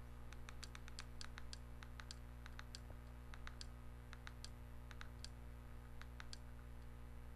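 Faint clicking of buttons being pressed to scroll a menu, unevenly spaced at about three or four clicks a second, over a steady low hum.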